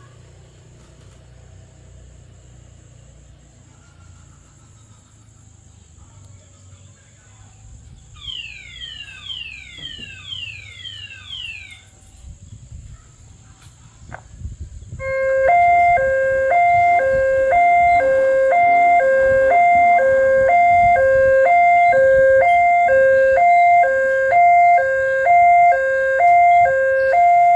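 Railway level crossing warning alarm starting about halfway through and then sounding loudly: an electronic two-tone ding-dong alternating in a quick, steady rhythm, the fast-tempo alarm that signals an approaching train. Before it there is low traffic rumble and a brief run of falling chirps.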